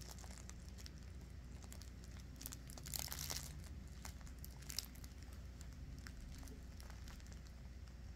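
Faint rustling and crinkling of fabric as a drowsy puppy shifts its weight on a fleece blanket and plush toy, with scattered small clicks. A louder rustle comes about three seconds in, and a sharp click near five seconds.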